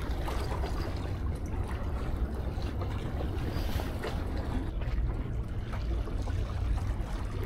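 Steady low rumble of wind buffeting the microphone, over a faint wash of sea water.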